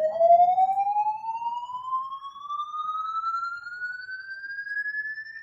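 A single electronic tone sweeping slowly and steadily upward in pitch, from low to high, then cutting off suddenly.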